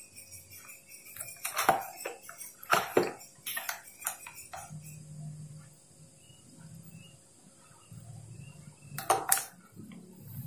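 Clicks and knocks from handling the opened plastic motor housing and wire connectors of a Philips blender: a cluster of sharp knocks between about one and four seconds in, and two more near the end.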